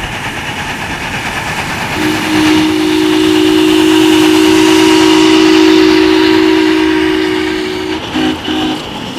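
7.25-inch gauge live-steam Union Pacific Big Boy locomotive passing with its train of freight cars, its running noise growing as it nears. About two seconds in, its whistle sounds one long two-note blast of about six seconds, followed by two short toots.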